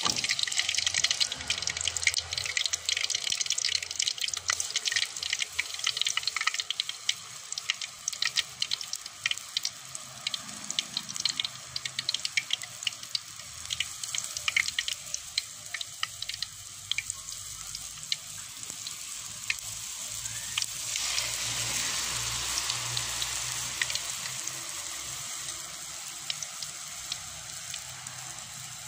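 Hot oil in a wok crackling and popping as a metal kokis mould heats in it. About two-thirds of the way through, a louder, steady sizzle takes over as the batter-coated mould goes into the oil and the kokis fries.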